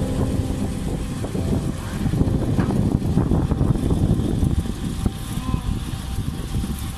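Diesel engine of a tandem-axle dump truck running under load as it climbs out of a dip and drives off over rough dirt ground: a steady, dense low rumble.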